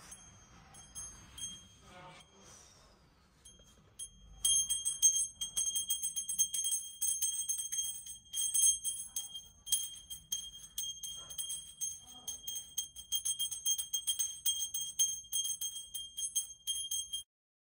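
Small brass puja hand bell rung rapidly by a small child during worship, with a continuous clanging and ringing. The bell starts about four seconds in and stops abruptly shortly before the end.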